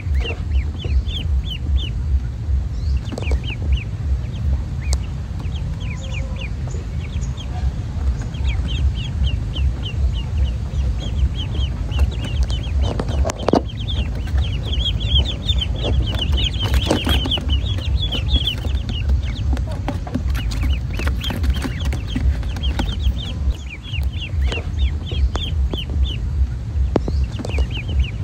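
A brood of ducklings peeping: a constant chorus of short, high, falling peeps from many birds at once, over a steady low rumble.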